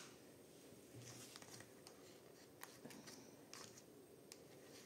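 Near silence, with faint rustles and a few light clicks from hands handling a paper-covered cardboard journal cover and its paper clips.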